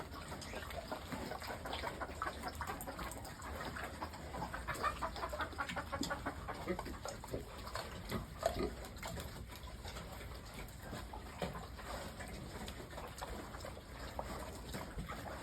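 Pigs on a farm grunting and squealing, many short overlapping calls throughout.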